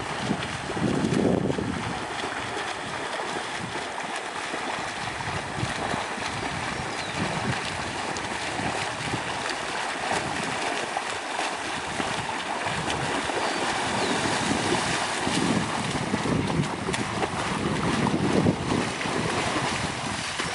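Swimmers splashing through open water, a steady wash of splashing and rushing noise, with gusts of wind buffeting the microphone now and then. Near the end, splashing as they wade out through the shallows.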